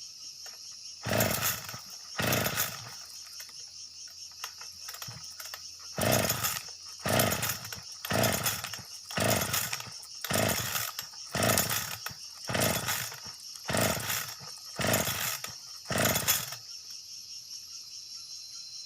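An engine revved in short throttle bursts, about one a second, each half-second rev falling away, following the call to give it full throttle. Crickets chirp steadily underneath.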